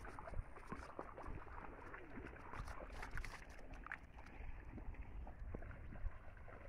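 Footsteps squelching and splashing through wet mud and puddles, an irregular run of short wet sounds, over a low rumble of wind on the phone's microphone.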